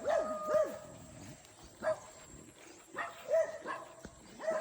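A dog barking in short, high-pitched yips, about seven of them, unevenly spaced.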